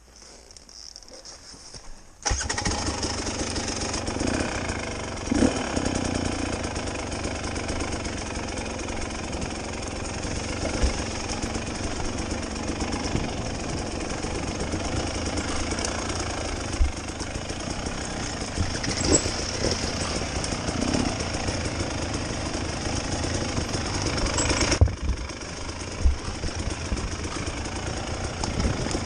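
Dirt bike engine running close up as the bike is ridden along a rough woodland trail, with a few short knocks along the way. It comes in suddenly about two seconds in after a quieter start, and drops a little near the end.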